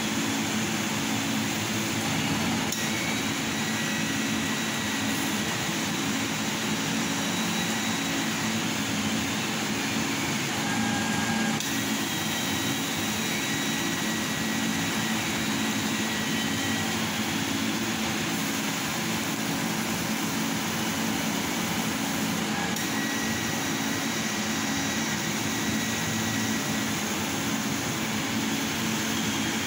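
CNC laser cutter running: a steady fan-like hum and hiss, with thin high whines that come and go in stretches as the cutting head moves over the sheet.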